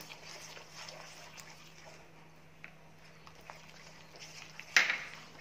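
Silicone spatula stirring and scraping a thick gram-flour, sugar and ghee mixture around a nonstick pan, with a few faint taps, over a steady low hum. A single short, sharp, loud sound comes near the end.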